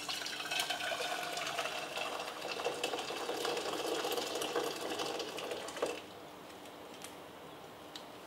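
Water poured from a stainless-steel electric kettle into a stainless-steel saucepan: a steady splashing pour for about six seconds that ends with a small clunk. A faint steady hiss follows.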